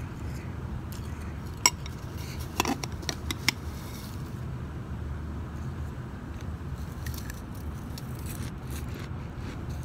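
Metal spoon clinking and scraping against a glass bowl of shaved ice: one sharp clink about a second and a half in, then a quick run of clinks around three seconds in. Fainter crunching of shaved ice later, as a spoonful goes to the mouth.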